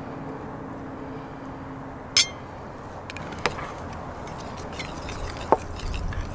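Hot sauce bottle being handled and capped, with sharp clinks about two seconds in and again about five and a half seconds in, then a metal spoon clinking and scraping in a small stainless steel bowl as the sauce is stirred near the end.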